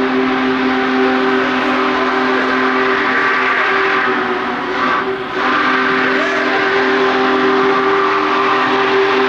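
Union Pacific Big Boy 4014's chime steam whistle sounding long, steady blasts as the locomotive departs, with a short break about five seconds in before the next blast.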